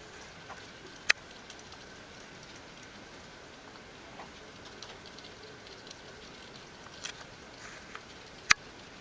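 Small possums eating raw meat from a plastic bowl: faint wet clicking and pattering over a steady hiss, with two sharp clicks, one about a second in and one near the end.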